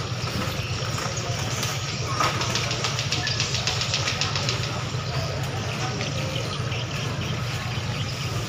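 Steady low hum of a docked passenger ship's engines running before departure, with a rapid ticking for about two seconds in the middle and faint voices.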